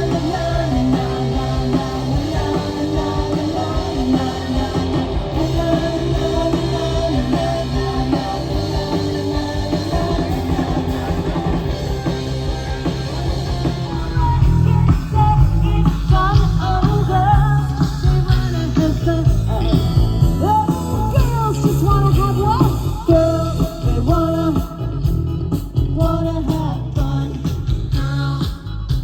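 Live rock band playing, with guitar, bass and drums and no clear words. About halfway through the music changes to a heavier beat with a lead melody line on top.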